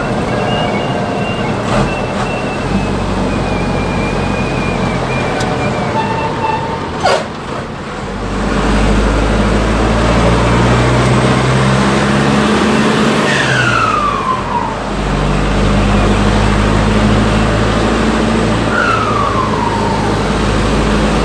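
Cummins 4BT turbo-diesel pulling the truck, with its Holset HX30W turbo whistling, a whistle made loud by 'pente' grooving work on the turbo. A high whistle sinks slowly over the first few seconds. The engine gets louder about a third of the way in, and twice the turbo whistle falls sharply in pitch as the throttle is lifted.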